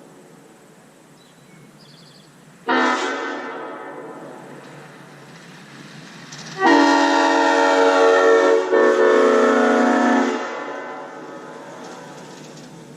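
Leslie S-5A five-chime locomotive air horn blowing its chord: a short blast, then a long blast of nearly four seconds with a brief break partway through. Each blast fades away slowly as it echoes.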